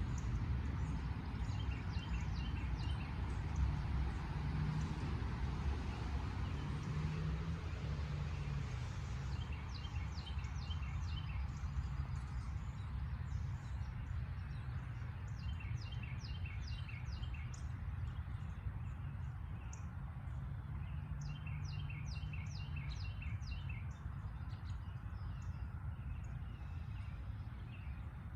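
A songbird singing short phrases of quick high notes, repeated every five or six seconds. Beneath the song runs a steady low rumble.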